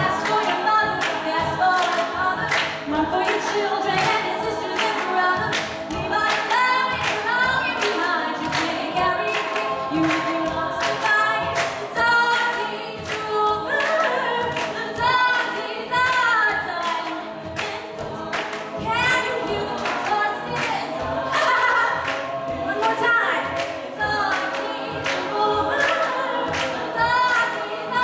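A cappella group singing in several voice parts over a steady, sharp beat of a little over two hits a second.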